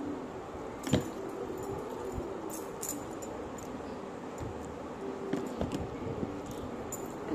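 Handling of a phone held close to the microphone: scattered taps and clicks, the loudest about a second in, with light clinks of glass bangles, over a steady background hiss.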